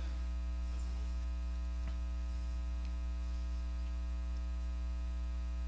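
Steady electrical mains hum, a low buzz with a long stack of overtones, unchanging throughout.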